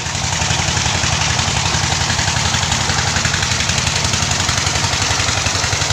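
The 'mesin 48' engine of a land tin-mining rig running steadily under load, with a fast, even thumping pulse and a noisy hiss over it.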